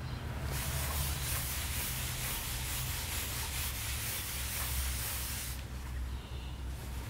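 Cloth rag rubbing oil into the end grain of a jarrah and karri cutting board: a steady rubbing hiss that starts about half a second in and stops about five and a half seconds in.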